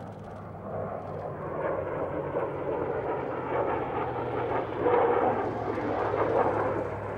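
Aircraft roar from an F-22 Raptor and a P-51 Mustang flying past together in formation, with a steady low drone underneath. It grows louder through the first half and is loudest about five seconds in.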